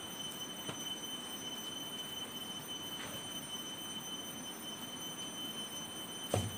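Wood fire burning under cooking pots: a steady hiss with a few faint crackles, over a thin steady high-pitched whine. A short thump comes near the end.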